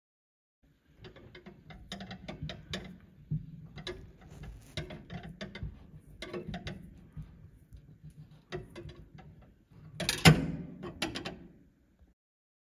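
Ratchet mechanism clicking in several short bursts, with a louder knock about ten seconds in.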